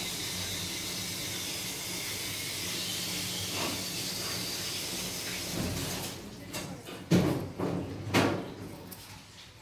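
A steady hiss with a faint low hum cuts off about six seconds in. It is followed by a few sharp snips of grooming scissors trimming a Yorkshire terrier's head fur.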